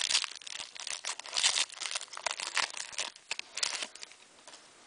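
Trading cards being slid off the stack and flipped through by hand: a quick run of short, crisp rustling and crinkling scrapes of card stock, dying away about four seconds in.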